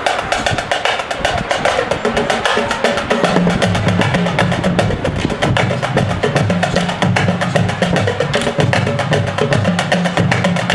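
Marching band drumline playing a fast percussion passage of rapid, crisp stick strokes. Low pitched notes join about three seconds in and move in steps under the drumming.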